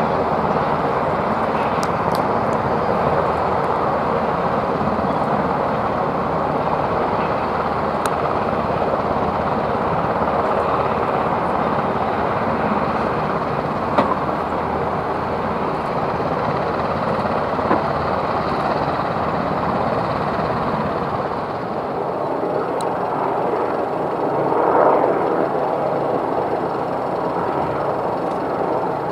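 AAV7 amphibious assault vehicles' diesel engines and tracks running as the vehicles drive up out of the sea and along a sand beach: a loud, steady mechanical noise, with a sharp click about halfway through and a brief swell near the end.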